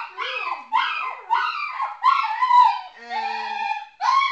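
Seven-week-old Rhodesian Ridgeback puppy crying over and over: about six high-pitched cries in quick succession. It is upset at being the only one left in the pen.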